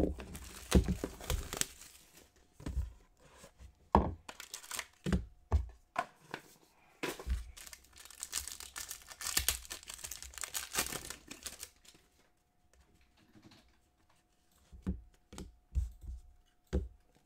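A 2021-22 Panini Court Kings basketball card pack wrapper being torn open and crinkled, in two stretches of rasping. Near the end come a few light taps as the stack of cards is knocked square on the table.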